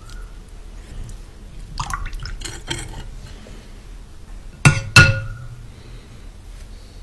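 Steel spoon stirring spiced water in a glass bowl, with soft clinks and small sloshing sounds. About two-thirds of the way in, two sharp clinks ring out close together as the metal knocks against the glass bowl.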